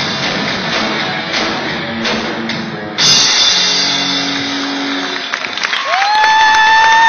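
Rock band of electric guitars, bass and drum kit playing the last bars of a song, ending on a loud hit with cymbals about three seconds in that rings and fades. Near the end a long high tone rises in and holds steady while clapping begins.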